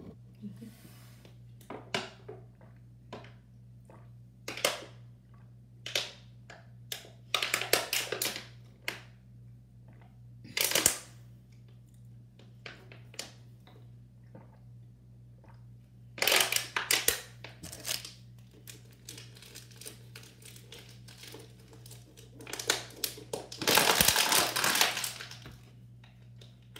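Thin plastic water bottle being squeezed and crumpled in the hand: irregular crackling crinkles in scattered bursts, the longest and loudest a couple of seconds long near the end.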